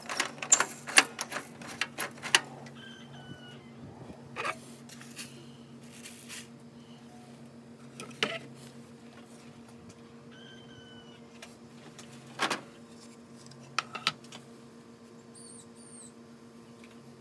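Steady low electrical hum with sharp clicks and rattles, a quick cluster in the first couple of seconds and single ones spaced a few seconds apart after that. Faint short high chirps come three times.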